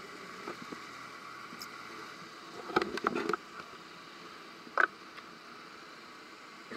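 Underwater sound through a camera housing: a steady hiss with a faint hum under it, broken by a quick cluster of clicks and knocks about three seconds in and one sharp click near five seconds.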